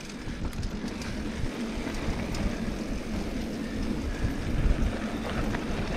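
Off-road handcycle rolling along a loose dirt trail: steady tyre and riding noise with an uneven low rumble and scattered small clicks from the rough ground.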